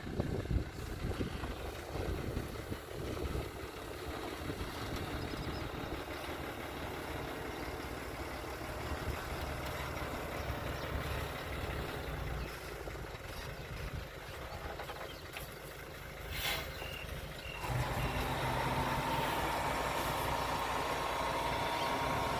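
A vehicle engine running steadily. About eighteen seconds in it gets louder, and a steady hum and a higher whine set in.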